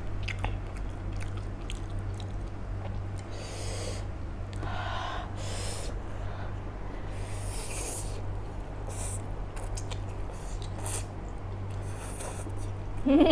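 A person eating instant noodles with chopsticks, slurping mouthfuls in several short, airy sucks and chewing between them, over a steady low electrical hum.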